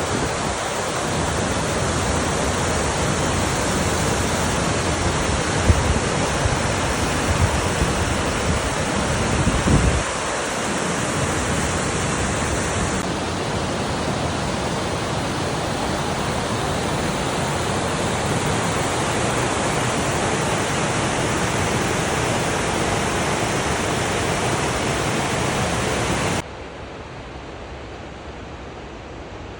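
Waterfall rushing, a steady wash of falling water, with low gusts of wind buffeting the microphone over the first ten seconds or so. Near the end the sound drops suddenly to a quieter level.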